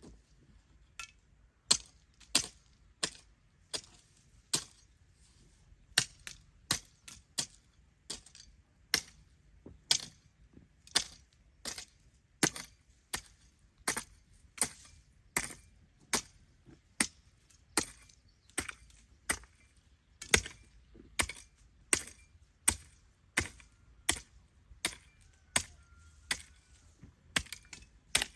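Hand hoe striking the ground again and again while a trench is dug, a steady series of sharp strikes about two a second.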